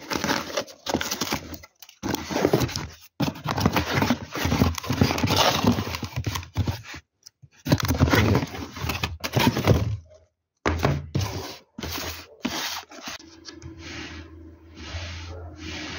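Cardboard packaging of an easy-open box being pulled apart and handled: rough scraping and tearing of cardboard in repeated bursts, broken by a few abrupt silent gaps, and sparser and quieter in the last few seconds.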